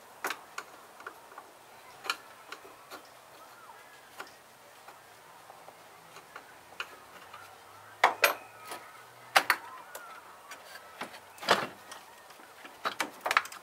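Scattered plastic clicks and knocks of an engine wiring connector and its clip being worked loose by hand, with a few louder snaps past the middle and another near the end.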